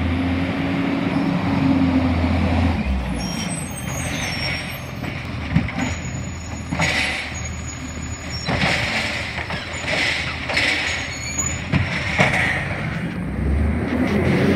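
Automated side-loader garbage truck, its diesel engine running as it pulls up. Then a series of short air hisses while it stands and works its side arm, and the engine picks up again near the end.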